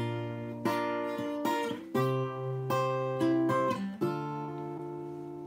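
Acoustic guitar strummed chords, each struck and left ringing, a new one about every half to one second: an instrumental passage between the sung lines of a solo guitar-and-voice song.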